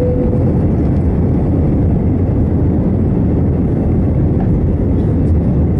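Jet airliner's engines and airflow heard inside the cabin during the climb just after takeoff: a loud, steady rushing noise. A short single tone sounds at the very start.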